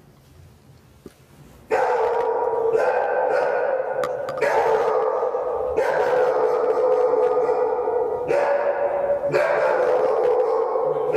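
A dog barking loudly and over and over, starting suddenly about two seconds in after a quiet start.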